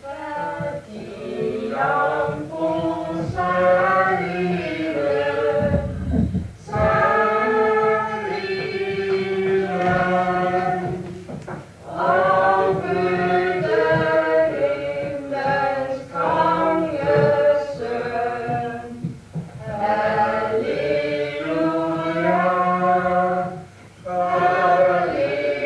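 A group of voices singing a Christmas carol together in long phrases, with short breaks between the verses' lines.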